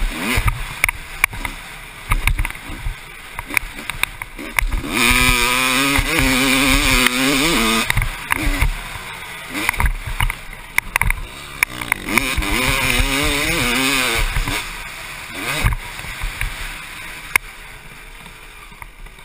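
1996 Honda CR250's single-cylinder two-stroke engine being ridden hard on a dirt track, revving up and falling back repeatedly. It is loudest at high revs about five to eight seconds in and again around twelve to fourteen seconds, and drops off near the end. Many sharp knocks run through it.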